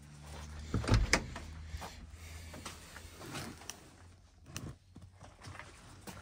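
A few sharp knocks and clunks over a low steady hum; the loudest knocks come about a second in, with smaller clicks after.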